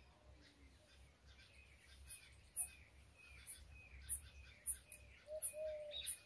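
A comb drawn through long frizzy hair in repeated strokes. Each stroke is a brief high scratch, about two a second from about two seconds in. Birds chirp throughout, and a dove coos near the end.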